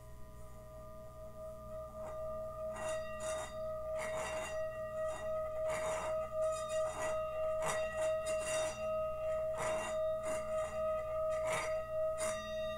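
A small Himalayan singing bowl rubbed around its rim with a wooden stick, singing one steady tone with ringing overtones that swells over the first couple of seconds. From about two seconds in, repeated scratchy rasps come from the stick on the rim.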